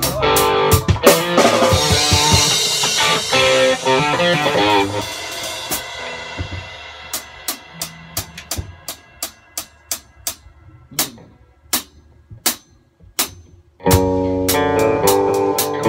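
Band music with drum kit and guitar. About five seconds in the band fades out, leaving only sparse single drum hits. The full band comes back in near the end.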